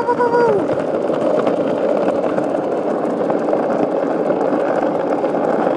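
Skateboard wheels rolling fast over asphalt while a dog tows the board: a steady rolling rumble with fine grit ticks.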